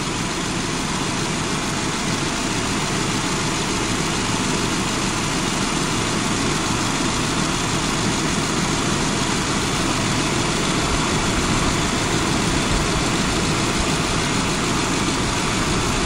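A 2005 Subaru Forester's flat-four engine idling steadily with the air conditioning running. Refrigerant is being charged into the low side of a system that is still reading low. It makes an even, unbroken rush of noise.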